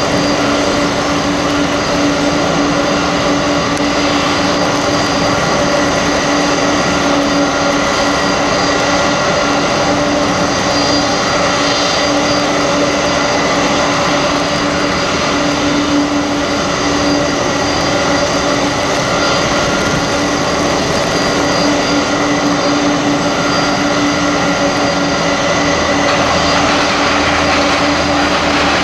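Boeing 747-400 turbine whine at the stand: a loud, steady whine with several held tones over a rushing noise. A low rumble joins near the end.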